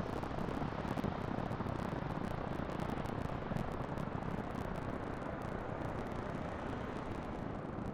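Jet airliner engines at takeoff power: a steady, even rumble with a faint crackle on top.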